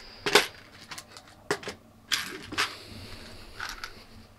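Clear plastic parts trays full of loose LEGO pieces being picked up and set down: a run of sharp plastic clacks with the pieces rattling inside, the loudest about half a second in.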